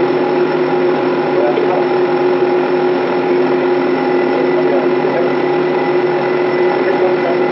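Steady, loud machinery drone with several fixed pitches, holding unchanged throughout.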